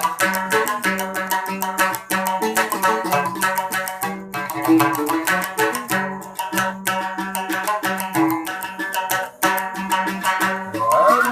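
Large Sasak gambus, a plucked lute, played solo in quick, steady plucked notes over a repeated low note.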